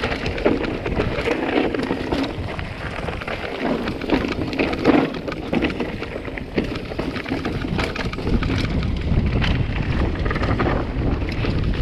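Mountain bike riding fast over a rough, stony trail: tyres crunching over loose stones and the bike rattling with many sharp knocks, under a steady rumble of wind buffeting the chest-mounted camera's microphone.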